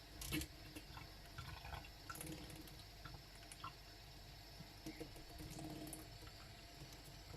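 Young lovebirds making faint, scattered clicks and small taps as they move about and peck, with one louder knock about a third of a second in.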